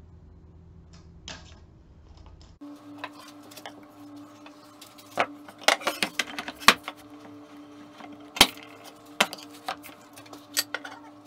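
Sharp knocks and clicks of oak workpieces and a Stanley bench plane being handled and set down on a wooden shooting board, several of them loud and irregularly spaced, over a steady low hum. The first couple of seconds hold only faint room tone.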